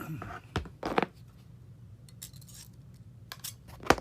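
Small metal tool parts clinking and knocking on a hard surface: a couple of light clicks in the first second, then a sharper knock near the end.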